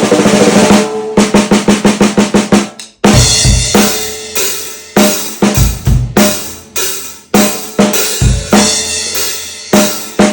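A 14x8 maple/mahogany stave snare drum at a medium tuning, its snare wires still off: a roll swells and ends about a second in, then a quick run of strokes. From about three seconds in the snare is played in a groove over bass drum hits, each stroke ringing out with a steady pitched tone.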